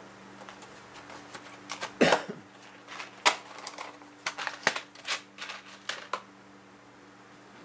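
Clicks and rattles of a clear plastic box of blue crimp connectors being opened and the small plastic connectors being picked out by hand: a string of irregular sharp clicks that stops about six seconds in.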